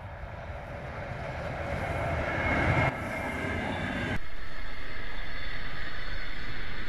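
Passenger train hauled by an EP20 electric locomotive passing at speed. The sound grows louder as the locomotive approaches, then turns into the steady rumble of the coaches' wheels on the rails, with abrupt jumps in the sound about three and four seconds in.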